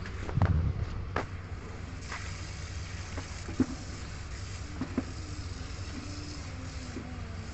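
Steady low background rumble, with a thump about half a second in and a few sharp clicks scattered through.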